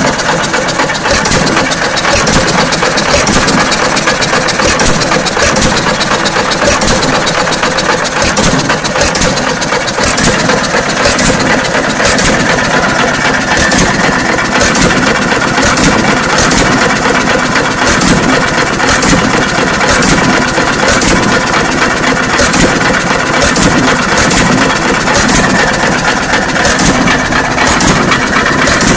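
John Deere 1 1/2 hp Type E single-cylinder hit-and-miss engine running, with sharp, evenly spaced beats about once a second over its steady mechanical clatter. It runs on battery and low-tension coil ignition rather than a magneto.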